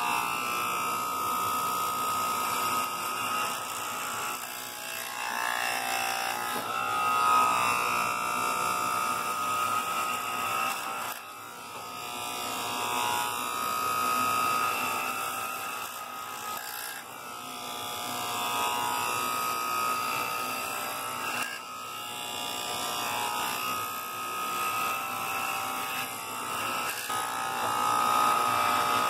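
Corded electric hair clippers buzzing steadily while shaving a head of thick hair, the sound swelling and dipping as they move across the scalp.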